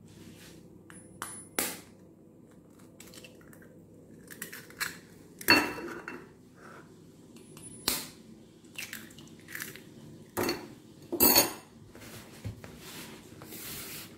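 Two eggs being cracked against the rim of a bowl: a handful of sharp taps and clinks a few seconds apart, with the crunch of shell.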